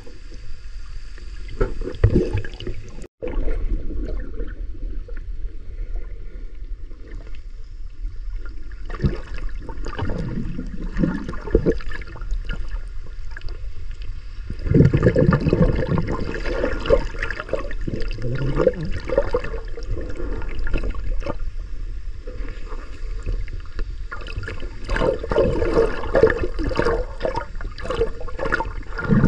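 Muffled underwater water noise picked up through a camera's waterproof housing. A steady low rumble runs with irregular sloshing and scattered knocks as the camera is moved, and the sound drops out briefly about three seconds in.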